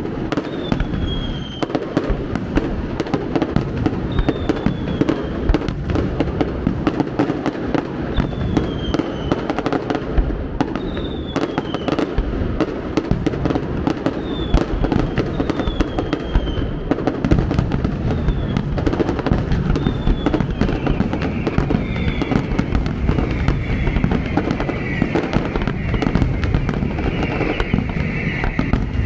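Fireworks display: a dense, continuous run of aerial shell bangs and crackles over a rolling rumble. Short falling whistles sound every few seconds, and in the last several seconds they thicken into an overlapping whistling layer.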